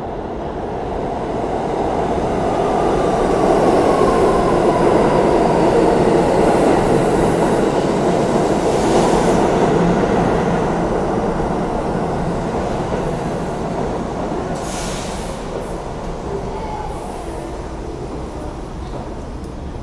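New York City subway train running into a station along the platform track and slowing. Its rumble swells over the first few seconds, holds, then slowly fades as it brakes, with short high-pitched squeals or hisses in the middle and again later.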